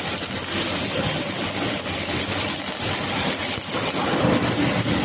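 Steady hissing crackle of a welding arc as a trackless horizontal fillet welding carriage runs along a fillet joint.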